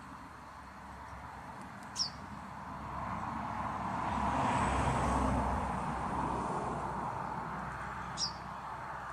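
Two short, sharp chaffinch calls, one about two seconds in and one near the end, over a low rushing noise that swells and fades, loudest about halfway through.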